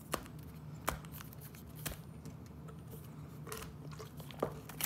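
Foil Pokémon booster packs being shuffled by hand: the plastic wrappers crinkle and give a few sharp crackles as the packs slide against one another.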